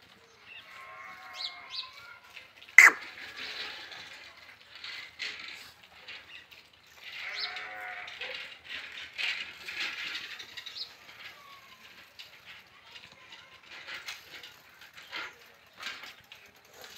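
Goat kids bleating a few times, with scuffling and light knocks, and one sharp click about three seconds in.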